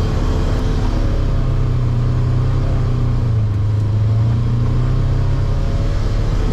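Polaris Ranger 900 XP side-by-side's 875 cc twin-cylinder engine running steadily under way, heard from inside the cab, a constant low drone with only small changes in pitch.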